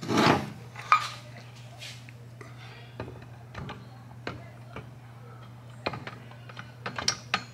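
Metal engine parts clinking and tapping as the upper crankcase half of a Kawasaki ZX14 engine is handled and seated on the lower case: a short clunk at the start, a sharp click about a second in, scattered light taps, and a quick run of clicks near the end, over a steady low hum.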